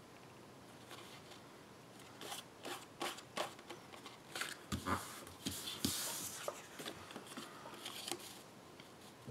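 Sheets of cardstock and patterned paper being handled and shuffled together by hand: irregular soft taps, clicks and rustling swishes of paper against paper, starting about two seconds in and dying down near the end.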